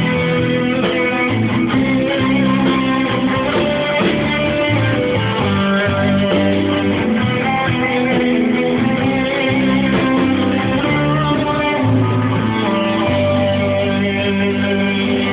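Band music carried by guitars over a steady bass line, with held chords throughout.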